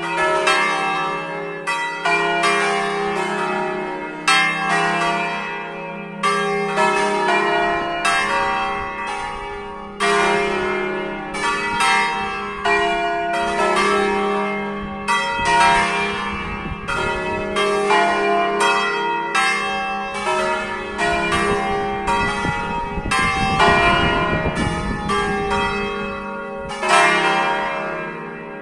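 A concerto of five swinging church bells tuned in E-flat major (E-flat, F, G, A-flat, B-flat), four cast by Giorgio Pruneri of Grosio in 1892 and 1900 and one by Ottolina of Seregno in 1951. All five ring together in irregular, overlapping strokes for the third signal, with a low rumble under them in the middle.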